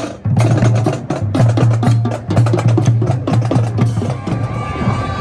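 Music with drums and a low bass note pulsing in a steady beat, the drum hits sharp and frequent.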